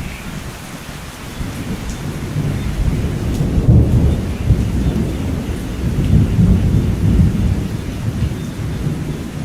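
Thunderstorm: steady heavy rain with a long, rolling rumble of thunder that builds about two seconds in, peaks twice and slowly fades toward the end.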